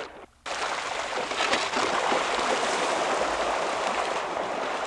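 Water rushing and splashing, a steady hiss with no motor tone in it. The sound drops out briefly just after the start.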